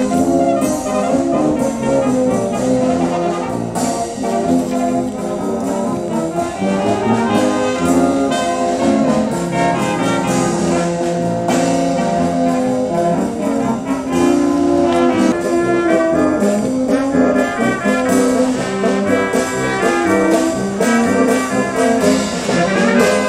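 Small brass band of tubas, tenor horns and trumpets playing a tune together.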